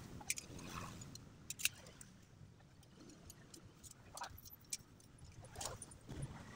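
Metal pattern weights clinking and knocking as they are handled and set down on a paper pattern laid over fabric on the floor, a handful of sharp clicks with the loudest about one and a half seconds in, amid paper rustling.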